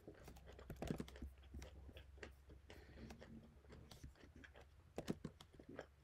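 Faint close-up chewing, with scattered small crunches and clicks, over a low steady hum.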